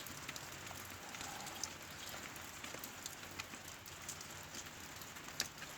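Faint steady hiss with scattered small clicks and ticks from a tool tightening the drain screw on a stern drive lower unit.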